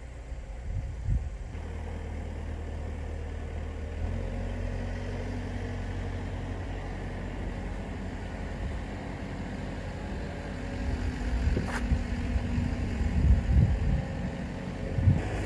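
An engine running steadily at idle, with a few knocks and thumps near the end.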